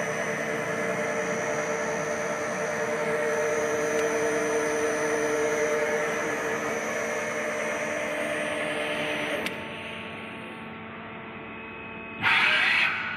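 Takisawa TC-203J CNC lathe running under power with a steady hum and whine. About nine and a half seconds in, a click comes and part of the sound drops away. Near the end there is a short hiss lasting about half a second.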